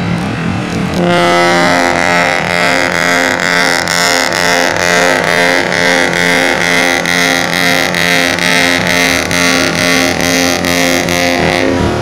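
A bus's ship-style air horn (klakson kapal laut) sounds loud and unbroken for about ten seconds. Its several tones pulse about twice a second. It starts about a second in and cuts off just before the end, over a steady vehicle and road noise.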